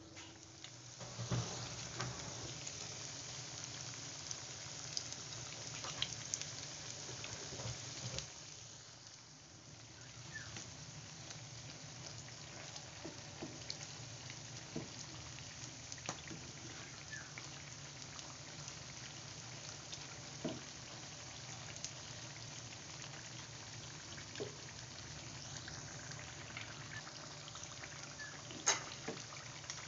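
Corn fritters deep-frying in a pan of hot oil: steady sizzling with scattered clicks and pops. The sizzle picks up about a second in.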